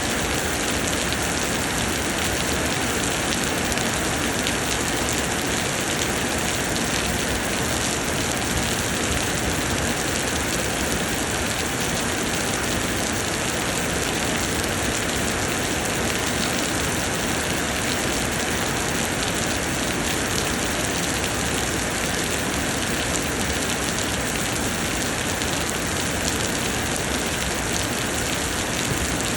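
Heavy summer rain pouring down steadily, an even, dense hiss of countless drops with no breaks.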